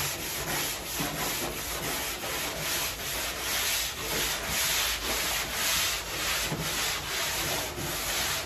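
A foam glass sanding block ('fart rock') rubbed back and forth over body filler on a car body panel: a scratchy sanding sound in even strokes, about two a second.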